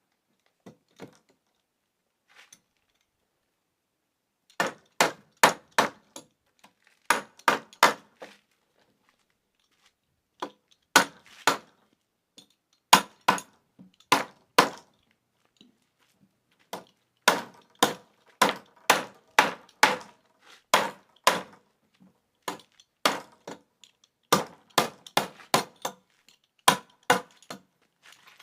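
Repeated hammer blows on wood, knocking glued wooden drawer pieces together until the joint is fully seated. The blows come in runs of several, about two to three a second, with short pauses between runs.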